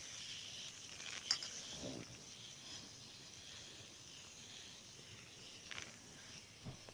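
A faint steady hiss with a light click about a second in and a couple of fainter ticks near the end, from a small fidget spinner being handled.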